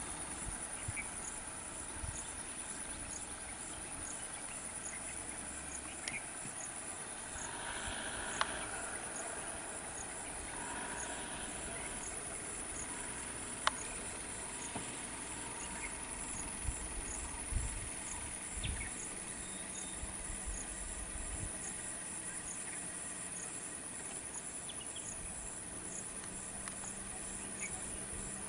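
Steady chorus of insects: a continuous high buzz with a fast, regular pulsing trill just beneath it. A few faint clicks and low rumbles come through, the sharpest click about halfway.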